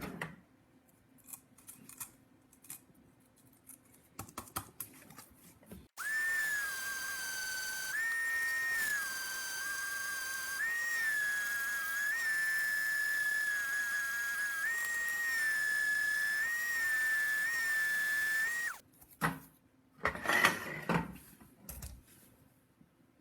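Electric sander fitted with coarse paper running with a steady high whine, its pitch dipping and recovering several times as it is pressed onto a plastic Nerf blaster shell to grind off the raised lettering. It cuts off sharply, followed by a few scraping rubs on the plastic.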